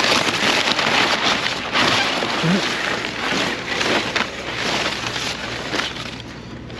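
Packaging rustling and crinkling in irregular crackly bursts as exhaust parts are pulled out of their wrapping, easing off near the end.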